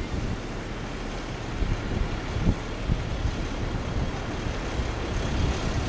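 A bus engine running at a stop, heavy low rumble. Gusty wind buffets the microphone on top of it.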